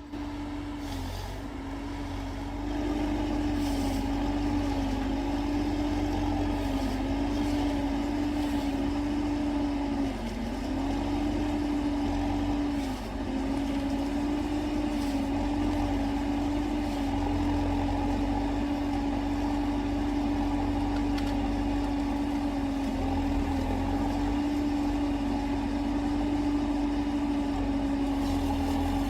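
Forestry harvester's diesel engine running steadily, its pitch dipping briefly a few times before recovering.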